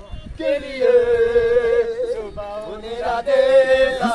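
A young man's voice singing or chanting long, drawn-out held notes: one starting about half a second in and lasting over a second, a short break, then another about three seconds in.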